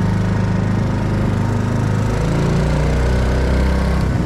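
Small wooden river boat's engine running steadily under way, its pitch shifting slightly a couple of times.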